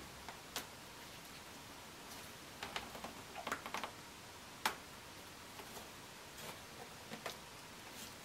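Faint, irregular clicks and taps of weathered timber and clamp parts as hands press and adjust the mitred corners of a wooden frame held in a band clamp, with a quick cluster of clicks about halfway through and one sharper tap just after.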